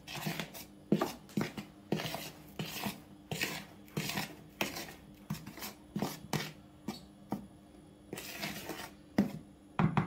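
Metal spoon stirring flour and dry ingredients in a plastic mixing bowl: short scraping strokes against the bowl, about two a second.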